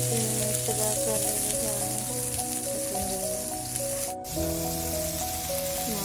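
Whole eggplants sizzling on a hot flat griddle, a steady hiss under background music. The sound drops out for an instant about four seconds in.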